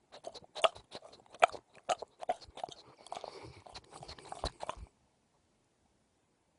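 Sleeping mastiff smacking and chewing with its mouth: a quick, irregular run of sharp clicks and smacks that cuts off suddenly about five seconds in.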